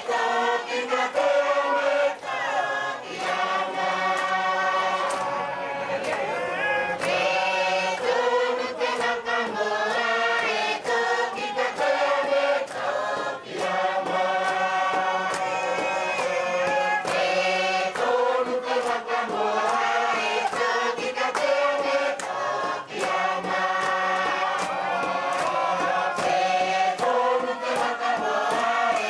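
Tuvaluan fatele song: a large group singing together in phrases of a few seconds, with sharp percussive beats struck regularly beneath the voices.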